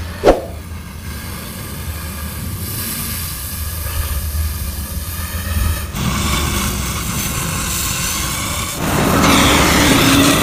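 A single sharp metallic clang with a brief ring, then a machine running steadily with a low hum and a whine. The whine grows louder about six seconds in and again about nine seconds in.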